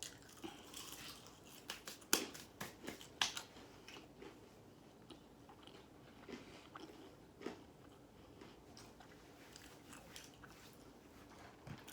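Close-up crunching and chewing of crispy fried chicken, with a few sharp crunches of the breading about two to three seconds in, then softer chewing.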